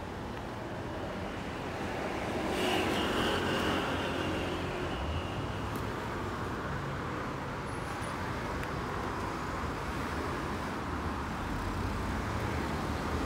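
Road traffic: steady engine and tyre noise from cars and buses, swelling a couple of seconds in as a vehicle passes, with a brief high whine.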